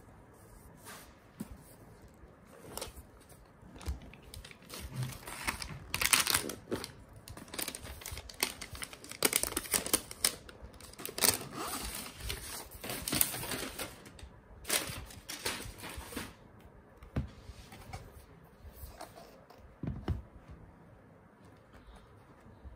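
Protective paper sleeve rustling and crinkling as it is unfolded from around a laptop, with scattered taps and knocks of the laptop and box being handled. The rustling is busiest in the middle and dies down near the end.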